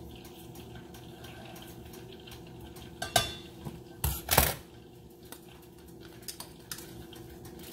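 Metal kitchen utensils clinking against a glass jar and a stainless saucepan: scattered small clicks, then two louder clatters about three and four seconds in, over a steady low hum.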